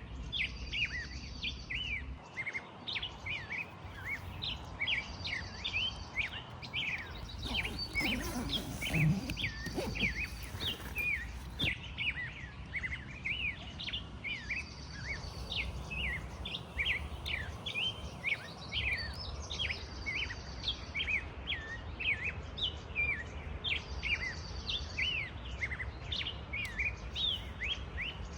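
Many small birds chirping continuously, with a short high trill repeating every few seconds, over a steady low background noise. A brief louder burst of noise comes about nine seconds in.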